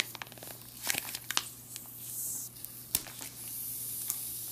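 Foil-laminate ration pouch being torn open by hand, crackling and tearing. About three and a half seconds in, a steady hiss begins as air passes through the torn opening of the sealed pouch.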